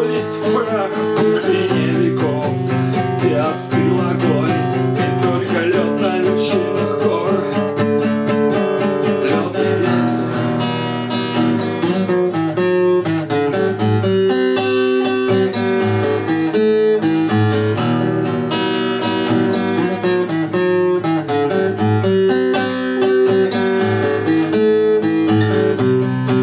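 Acoustic guitar playing an instrumental passage between sung lines, with picked notes and then strummed chords from about ten seconds in.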